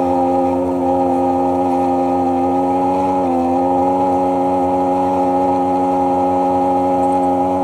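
Sea-Doo personal watercraft engine running steadily under way. Its pitch dips briefly about three seconds in, then comes back up.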